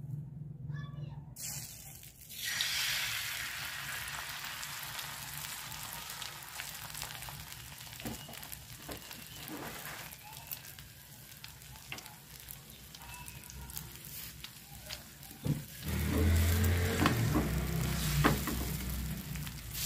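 Beaten eggs frying in hot oil on a flat griddle (tawa): a sudden sizzle about two seconds in as they hit the pan, settling into steady crackling sizzling. In the last few seconds a louder low hum and a few knocks join it.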